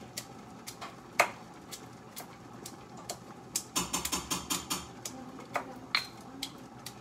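Garlic being pounded with a pestle in a stone mortar: irregular knocks, one sharp knock about a second in and a run of quicker strokes in the second half.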